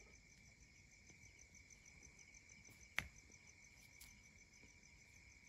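Faint night crickets chirring steadily with a fast, even pulse, and one sharp click about three seconds in.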